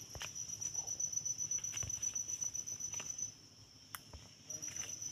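An insect trilling steadily at a high pitch in fast pulses. It breaks off a little past three seconds in and starts again about a second later, with a few soft clicks.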